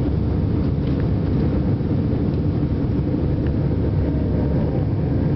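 Steady low roar of jet engines and rushing air heard inside an airliner cabin during the climb after takeoff.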